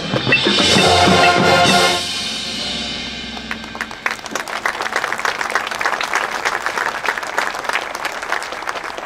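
Marching band with brass and drums playing the closing chords of a piece, which cut off about two seconds in and leave a lower sound fading out. From about four seconds in, the audience applauds.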